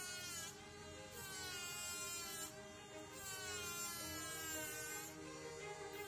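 Handheld electric rotary saw with a small cutting disc whining as it cuts into dry mummified tissue. Its pitch sags each time the disc bites and then jumps back up, several times over, showing the motor slowing under load. Soft background music runs underneath.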